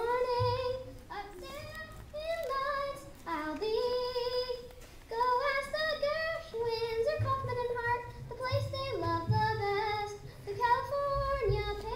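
A boy singing solo and unaccompanied into a microphone, a slow melody of held notes.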